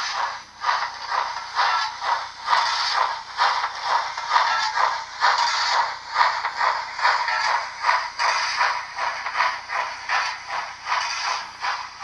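OO-gauge model of a Princess Pacific steam locomotive running, its DCC sound decoder playing steady steam exhaust chuffs, about two to three a second, through the model's small speaker, which gives it a thin sound with no bass.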